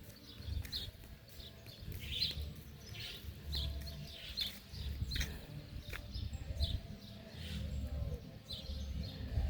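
Small birds chirping repeatedly in short, high calls, over an uneven low rumble.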